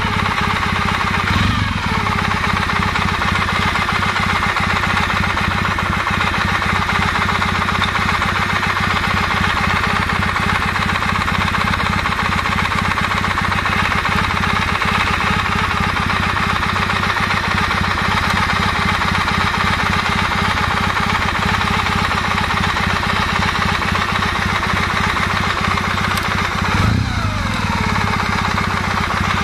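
Kawasaki W650's air-cooled parallel-twin engine idling with a knocking that sets in once the engine is warm, which the owner puts down to the camshaft drive gear. The engine note briefly shifts near the end.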